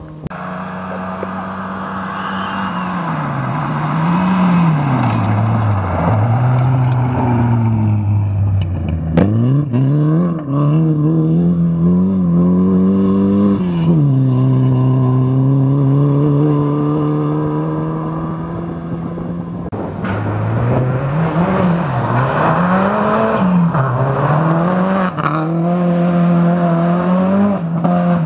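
Rally car engines running hard on a gravel stage, the pitch repeatedly climbing and dropping with gear changes and lifts of the throttle. It grows louder over the first few seconds as a car approaches.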